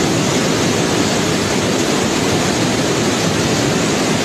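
Muddy floodwater of a swollen river rushing past, a steady loud noise with no breaks.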